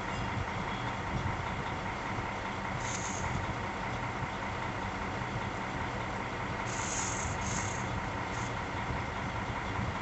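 Steady engine hum of an idling vehicle, with brief high hisses about three seconds and about seven seconds in.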